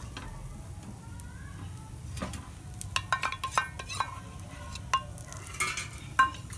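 Steel spoon clinking and scraping against a steel bowl and the tawa as besan batter is scooped and spread, over a faint sizzle of the batter frying. A quick run of clinks comes in the middle, and there is one sharp clink near the end.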